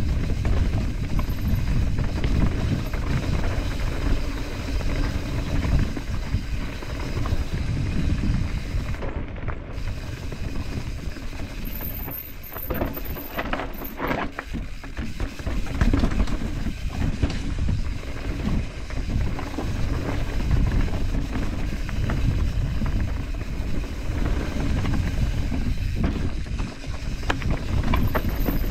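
Mountain bike descending a rocky dirt trail: wind rumbling on the action-camera microphone over the steady crunch of tyres on loose rock and dirt, with the bike rattling. A cluster of sharp knocks comes about halfway through as it goes over rocks.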